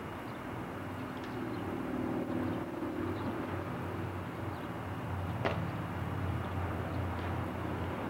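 A low, steady engine drone, stronger in the second half, with a single sharp click about five and a half seconds in.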